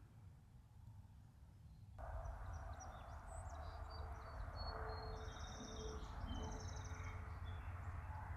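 Songbirds chirping and trilling in quick high phrases over a low steady rumble, starting about two seconds in after an abrupt change in the background.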